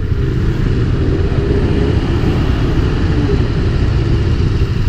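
KTM 390 Duke's single-cylinder engine running steadily in neutral as the bike coasts to a stop, with road and wind noise.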